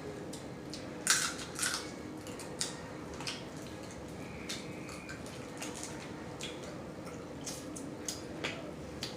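Eating blue crabs close to the microphone: irregular sharp cracks and wet clicks of shell being broken and picked, and mouth smacking, the loudest a pair of cracks about a second in.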